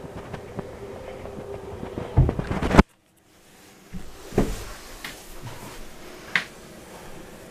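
Scattered knocks and bumps over a faint steady hum. A cluster of bumps comes just before the sound cuts out abruptly about three seconds in, silent for about a second, then a few more single knocks follow.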